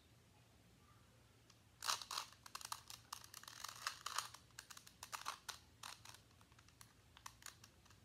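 2x2 Rubik's cube being twisted quickly in the hands: a fast, irregular run of light plastic clicks and clacks from the turning layers, starting about two seconds in.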